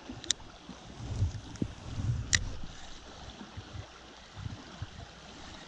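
Small stream's water running steadily, with two sharp clicks (the louder one about two and a half seconds in) and a low rumble between about one and two and a half seconds in.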